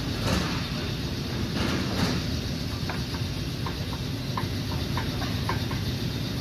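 Metal parts knocking and clicking as a drive axle is fitted into a car's front wheel hub, over a steady workshop rumble. A couple of scuffs come in the first two seconds, then a run of light clicks, about three a second, from about the third second on.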